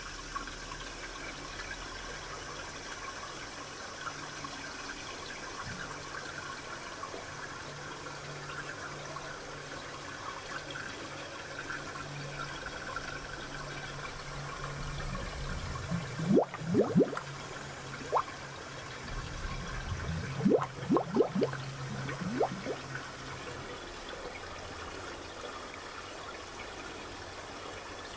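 Aquarium water gurgling over a steady low hum and light watery hiss, with two spells of quick rising bubbly gurgles about halfway through.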